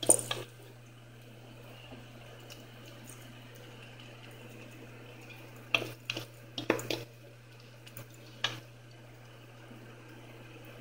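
A spoon pressing moist semolina dough into a metal baking pan, with a few sharp knocks and clicks of the spoon against the pan: one at the start, a cluster about six to seven seconds in and one more near eight and a half seconds. A faint steady low hum runs underneath.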